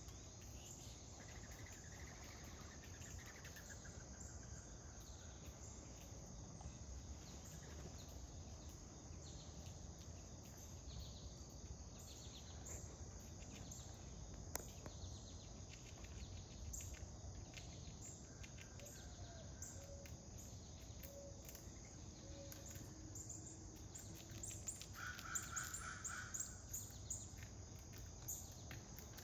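Faint outdoor ambience: scattered bird calls over a steady high insect trill, with a louder, harsher call about 25 seconds in.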